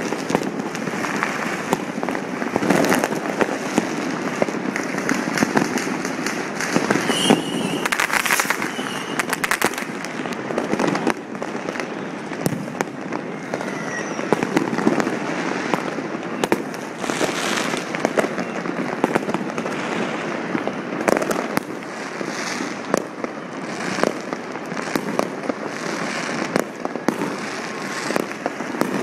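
Fireworks and firecrackers going off all over a city in a dense, unbroken barrage of overlapping bangs and crackles, some close and sharp, many further off.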